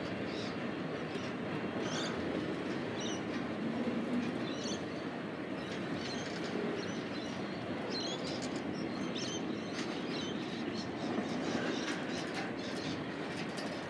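Container wagons of a freight train rolling slowly past on the rails as it prepares to stop in a passing loop, a steady rumble of wheels and rail. Short bird chirps sound over it.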